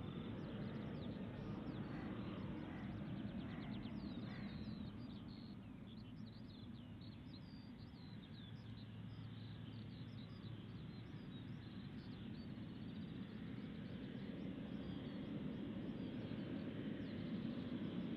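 Distant low rumble of a Boeing 777-300ER's GE90 engines at low power as the airliner rolls along the runway after landing, easing off a little midway and growing louder near the end as it comes closer. Small birds chirp and twitter close to the microphone throughout.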